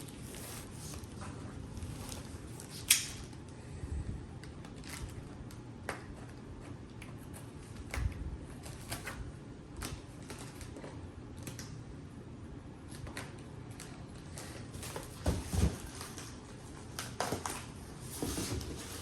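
Cardboard box and packing being handled as a speaker-stand base plate is worked loose: scattered taps, knocks and light rustling. There is a sharp click about three seconds in and a few heavier thumps around fifteen seconds in.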